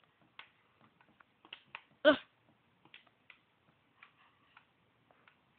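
Scattered light clicks and ticks at an irregular pace, with one short pitched vocal sound about two seconds in.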